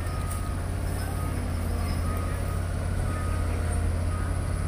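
Diesel engine idling, a steady low drone.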